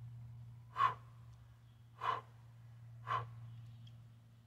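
A man's short, sharp breaths while straining under load: three quick puffs about a second apart, the breathing of heavy effort as he holds a kettlebell and levers a sledgehammer. A low steady hum runs underneath.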